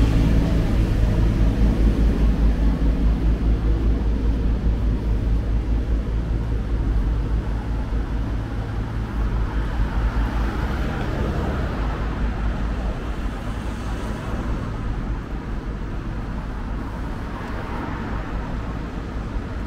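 A vehicle engine running nearby with a low, steady hum that gradually fades away, over general city street noise.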